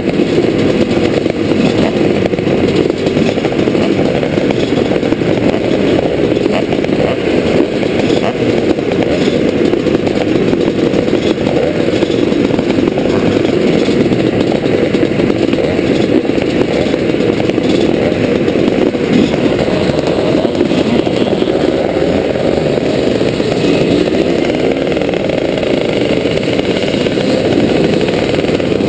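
A pack of vintage motocross bikes running and being revved at the start line, the camera bike's SWM 250RS two-stroke among them, in a dense, continuous engine racket. Near the end the bikes pull away with rising revs.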